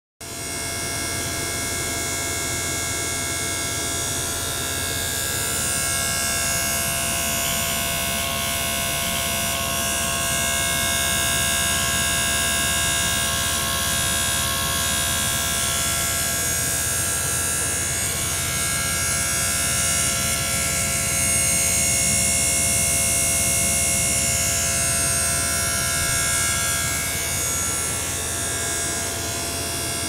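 Steady electric buzz from a small liquid-circulation pump and an ultrasonic transducer running in a beaker of water, with a low hum and several steady high tones.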